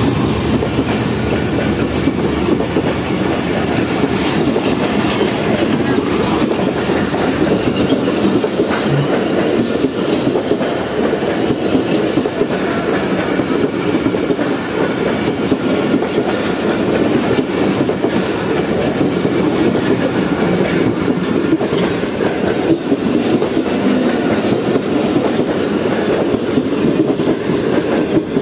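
Pakistan Railways express passenger coaches running past at speed: a steady, loud rumble of wheels on the rails.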